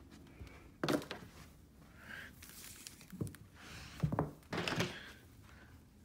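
Handling of an upright vacuum's power cord and plug as the cord is unwound: a few sharp knocks and clicks, the clearest about a second in and a cluster around four to five seconds in.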